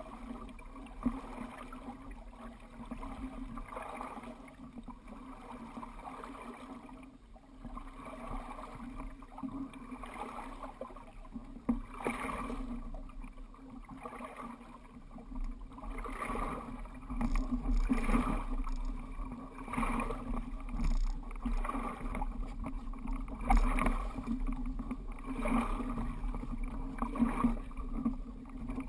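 Water rushing and slapping against the hull of a Dart 18 catamaran under sail, with a steady low rumble and repeated splashes that grow louder and more frequent about halfway through.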